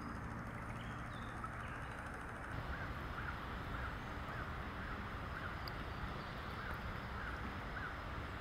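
A bird calling in a long series of short notes, about two a second, over a steady rushing outdoor background.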